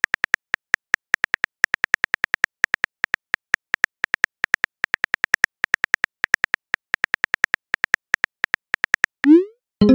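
Phone keyboard typing clicks from a texting-story app, a quick run of short identical taps, several a second. Near the end a brief rising whoosh plays as the message is sent.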